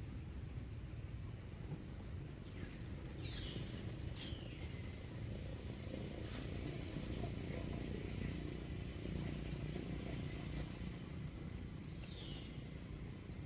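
Outdoor background rumble with a few short, high chirps that fall in pitch, about three seconds in, four seconds in and again near the end.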